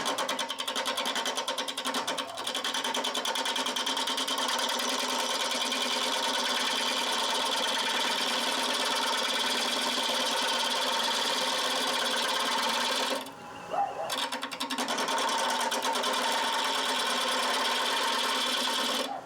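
Wood lathe running with a gouge cutting a spinning purpleheart bowl blank: a loud, even, rapid ticking chatter over the lathe's hum, stopping briefly about thirteen seconds in and then resuming.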